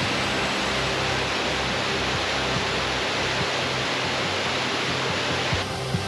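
Mountain waterfall cascading over rocks: a steady, loud rush of white water. Just before the end the sound changes abruptly and turns slightly quieter as a different recording of the cascade begins.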